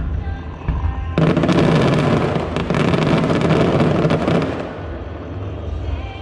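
Aerial fireworks going off: a dense barrage of crackles and bangs begins about a second in and dies away after about four seconds, with music playing underneath.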